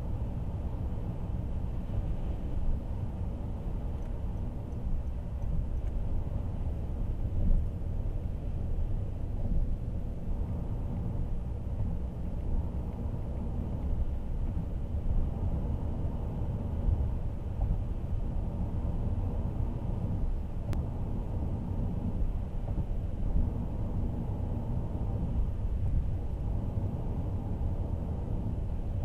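Steady road and tyre rumble inside the cabin of a Honda N-WGN kei car cruising on an expressway, the engine itself hardly heard.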